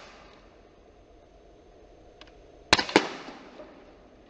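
CO2 air pistol, an Umarex Beretta PX4 Storm, firing: two sharp cracks about a quarter second apart, roughly two-thirds of the way in, then a tail that fades away over about a second.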